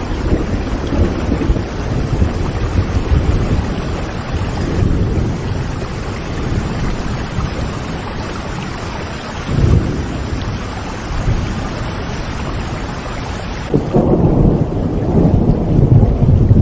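Rain falling steadily with low rolling thunder. Near the end a louder, longer rumble of thunder sets in as the rain hiss thins.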